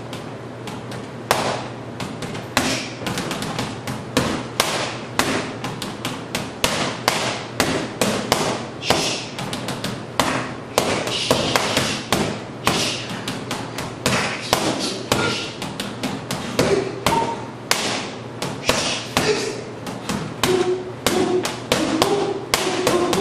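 Gloved punches landing on a wall-mounted rubber torso punching dummy in fast combinations. The sharp slaps and thuds start about a second in and keep coming at roughly three a second.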